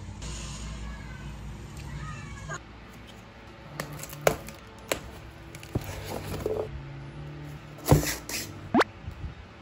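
A cat meows faintly twice in the first couple of seconds. Then a cardboard box and a foam carry case are handled and opened, with several sharp knocks and a short sliding scrape near the end.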